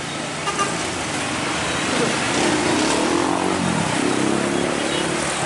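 Road traffic going by, with a vehicle's engine running close by and growing louder from about two seconds in, its pitch shifting as it passes.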